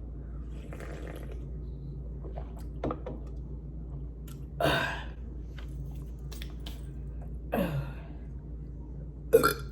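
Close-miked chewing of food with a few scattered wet mouth noises over a steady low hum, then a short burp near the end.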